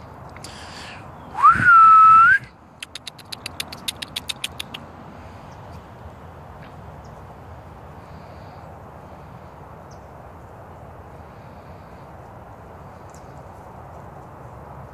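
A person whistles to call a dog: one note that slides up and then holds for about a second. It is followed by a quick run of about a dozen clicking sounds, roughly five a second.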